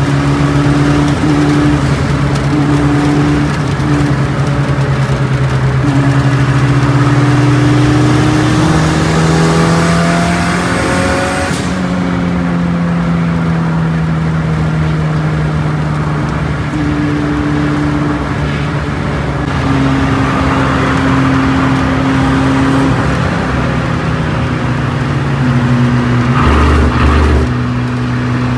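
Car engine heard from inside the cabin at highway speed, running loud and steady, climbing in pitch as it accelerates about 8 seconds in, then easing off and slowly falling.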